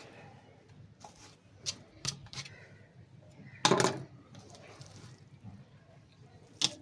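A few scattered knocks and clicks of kitchen utensils being handled, the loudest about three and a half seconds in and another sharp one near the end, over a low steady background hum.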